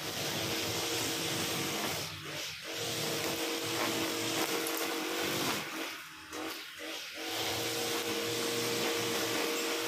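Honda GX35 four-stroke brush cutter engine running at high revs while cutting grass, its steady drone dipping briefly twice, about two seconds in and again around six to seven seconds.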